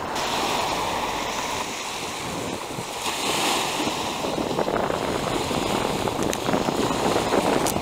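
Small wind-driven waves washing and breaking on the sandy shore of Lake Llanquihue.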